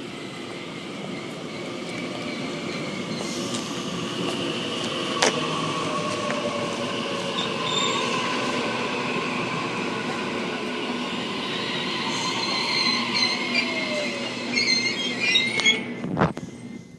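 Electric suburban passenger train running past the platform. Its motor whine glides down in pitch as it slows, and high wheel-and-brake squeal grows louder, coming in bursts near the end, before the sound cuts off suddenly.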